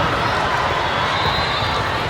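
Steady crowd din in a large hall: many voices overlapping with no single sound standing out.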